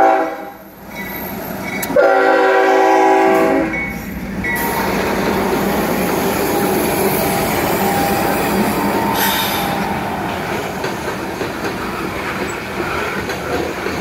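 Freight locomotive horn sounding a short blast, then a longer blast about two seconds in. After it, the locomotives and covered hopper cars roll past with a steady rumble and clatter of wheels on rail.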